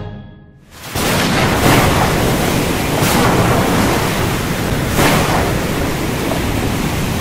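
Stormy sea: wind and surf make a steady rushing noise with several surges, coming in about a second in as the last chord of a band's music dies away.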